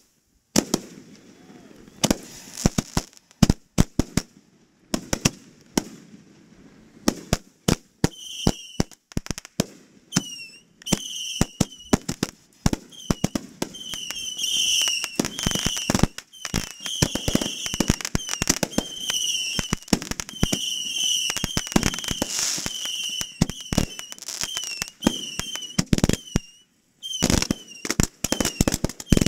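Fireworks display: a rapid run of sharp bangs and booms from shells launching and bursting, which grows denser about eight seconds in. From then on a string of short, high, chirping tones repeats about once a second over the bangs.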